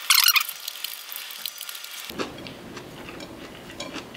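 Metal utensil scooping fried rice in a glass bowl: a short scratchy scrape at the start, then faint clicks and rustling. A steady background hiss steps up about halfway through.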